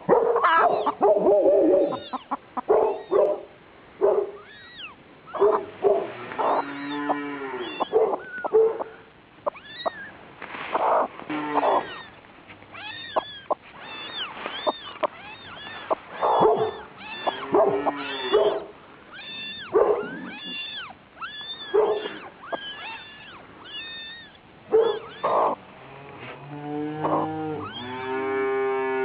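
Young kittens mewing over and over, many short high calls in quick succession. A longer, lower drawn-out call comes near the end.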